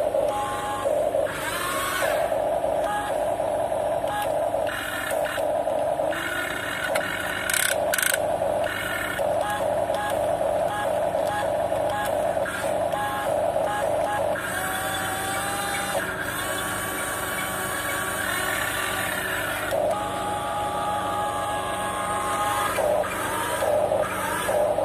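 Huina 1550 RC excavator running: its small electric motors and plastic gearboxes whine and buzz as it drives on its tracks and swings its arm, over a quick, repeated electronic beeping from its built-in sound effects.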